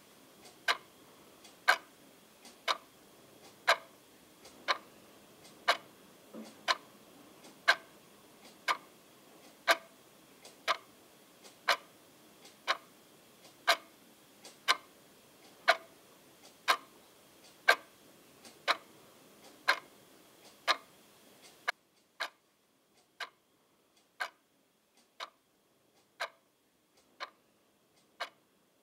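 Clock ticking steadily, about one tick a second. A faint hiss beneath it cuts out about three-quarters of the way through, leaving the ticks alone.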